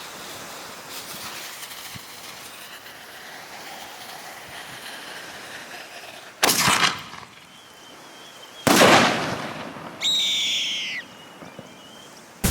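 Fireworks going off: two loud hissing bursts about two seconds apart, then a short shrill whistle, and a sharp bang right at the end, over a steady background hiss.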